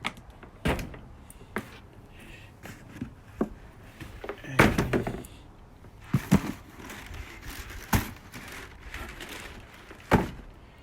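Scattered knocks and clunks of objects being handled and set down on a hard surface, with a louder clatter about halfway through and another sharp knock near the end.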